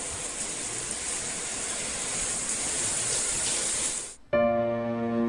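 Shower water running, a steady hissing spray used as a sound effect, which cuts off suddenly about four seconds in. Soft music of held, sustained notes takes over to the end.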